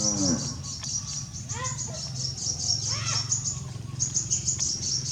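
High-pitched chirping in rapid pulsed trains throughout, over a low steady hum, with two short rising-and-falling calls in the middle.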